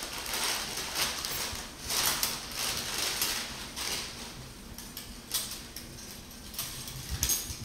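Paper wrap rustling and steel surgical instruments clinking as they are handled and sorted on an instrument table, in irregular surges about once a second.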